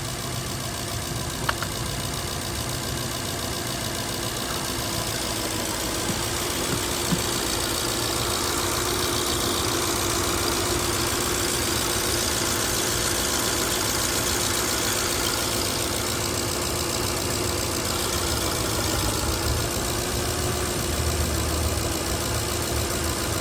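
Toyota 2UZ-FE V8 idling steadily from a cold start, with a light ticking that the owner takes for the fuel injectors.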